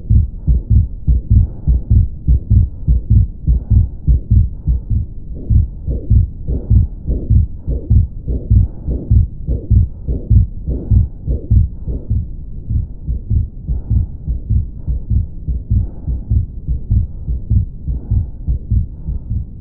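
Stethoscope recording of the heart sounds of an atrial septal defect (a hole between the two atria): a steady, regular run of low heartbeats with a murmur between them.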